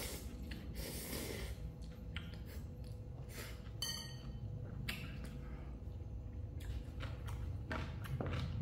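A person slurping and chewing instant ramen noodles in irregular short bursts, with a short clink about four seconds in.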